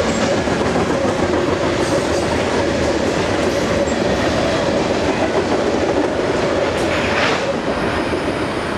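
Loaded covered hopper grain cars of a freight train rolling past on steel wheels, a steady rumble of wheel-on-rail noise. Near the end the last car goes by and the noise eases.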